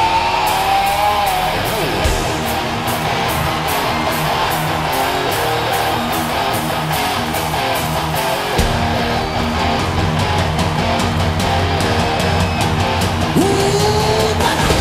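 Hard rock band playing live, an instrumental stretch with distorted electric guitars over drums and a steady cymbal beat. The bass and drums come in heavier a little past halfway, and a guitar slides up in pitch near the end.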